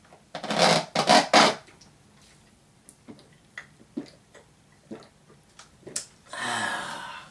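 Drinking through a long plastic straw from a novelty cup: a few loud slurps about a second in, faint scattered clicks, then a longer breathy rush near the end.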